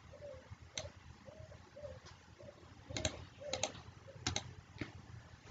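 Faint, regular clock-like ticking, about two ticks a second, with a few sharp clicks in between, several of them in quick pairs about three to four and a half seconds in.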